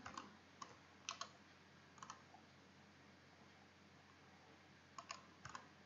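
Computer mouse clicking: a few sharp, scattered clicks, some in quick pairs, with a small cluster near the end.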